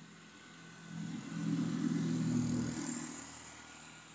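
A vehicle's engine swells to a peak about two seconds in and then fades away, like a vehicle passing close by.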